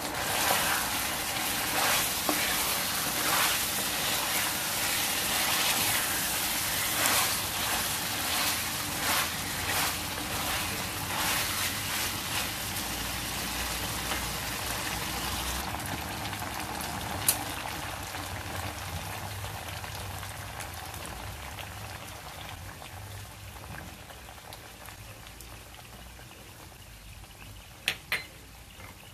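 Chicken liver and gizzard adobo sizzling and bubbling in a stainless steel pan as its sauce reduces, dense and crackly at first and slowly dying down. A single sharp click about halfway through and two quick clicks near the end.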